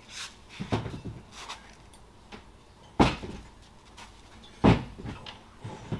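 Clunks and knocks of heavy metal engine parts being handled on a workbench while the cylinders come off a Lycoming O-360: a few lighter clunks in the first second, then two sharp knocks about three and four and a half seconds in.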